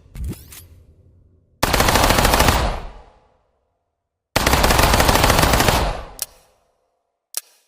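KF-18 Skorpion submachine gun firing two fully automatic bursts, each lasting about a second, roughly two seconds apart, with a short click near the start and another near the end.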